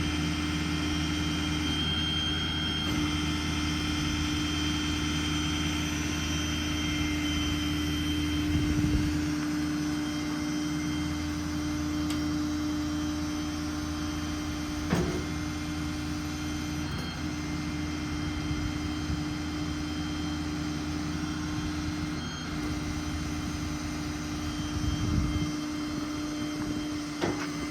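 Ford F550's 6.7 Power Stroke diesel running with the PTO engaged, driving the hydraulics of a Stellar 7621 service crane while the boom is worked. A steady low hum with a constant whine, and a couple of brief knocks about halfway and near the end.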